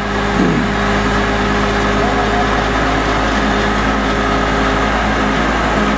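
Engine of a truck-mounted core drilling rig running steadily, a constant low hum with an even drone.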